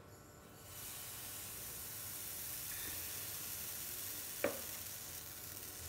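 Pancake batter sizzling in a hot greased frying pan: a steady hiss that starts just under a second in as the ladleful of batter spreads in the pan. One short click about four and a half seconds in.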